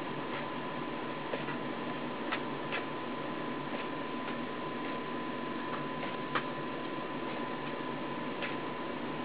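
Steady whirring hiss with a faint steady high tone from a Nao humanoid robot's running electronics and fan, with about a dozen soft irregular ticks as its head motors shift its gaze; the sharpest tick comes about six seconds in.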